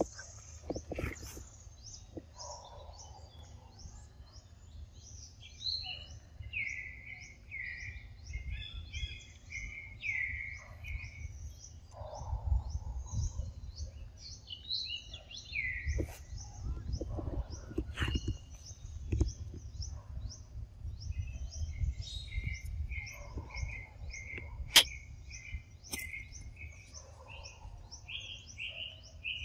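Forest birds calling: rapid high chirping throughout, with runs of falling whistled notes, over a low rumble. A few sharp clicks stand out, the loudest near the end.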